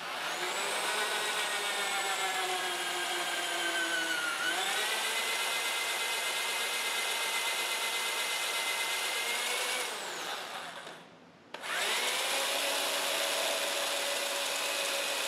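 Electric hand drill running with a bit cutting down through a Model T Ford engine's lifter bore into the valve guide, to bring the two into line. The motor whine sinks in pitch as the bit bites, then picks back up about four seconds in. About ten seconds in the drill spins down and stops, then starts again a moment later and runs on.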